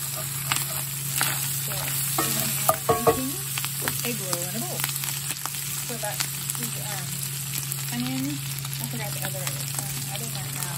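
Ground beef with onions and peppers sizzling in a cast-iron skillet, with a wooden spoon stirring and scraping the pan in the first few seconds before the frying goes on undisturbed.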